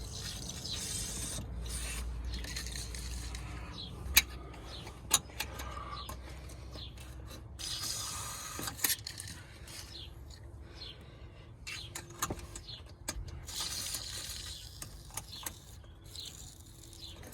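WD-40 aerosol sprayed in several hissing bursts into a seized manual window regulator's runners inside a car door, with a few sharp clicks and knocks of metal parts in between.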